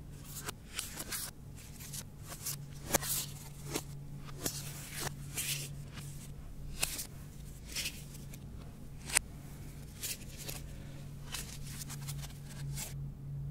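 Paper slips being handled, in a series of short crisp rustles and crinkles, the loudest about three seconds in and again about nine seconds in, over a low steady hum.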